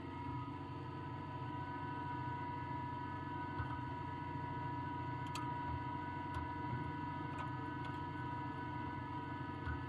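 Machinery running steadily, a continuous hum made of several steady tones over a low rumble, with a few faint ticks and knocks now and then.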